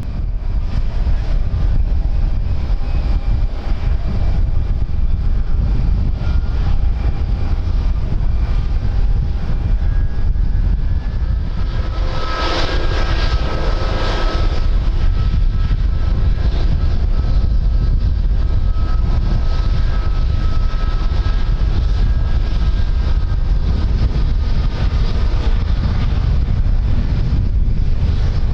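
Aircraft engines whining steadily, with the sound swelling briefly about halfway through, under heavy wind buffeting the microphone.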